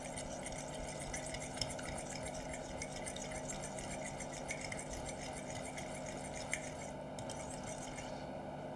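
Two forks stirring a thin egg-yolk and milk mixture in a ceramic bowl: faint, soft scraping with a couple of light clinks.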